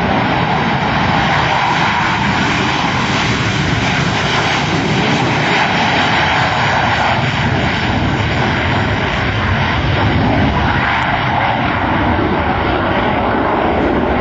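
A Blue Angels F/A-18 Hornet's twin General Electric F404 turbofan engines at takeoff power: loud, steady jet noise as the jet rolls down the runway, lifts off about halfway through and climbs away.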